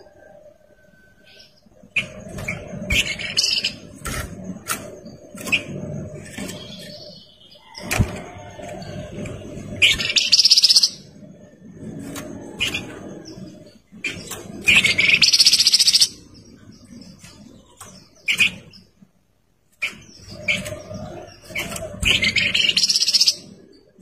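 Caged kapas tembak songbird singing: loud, rapid, high-pitched song phrases about a second or two long, repeated every few seconds, with short single chirps in between, over a low background murmur.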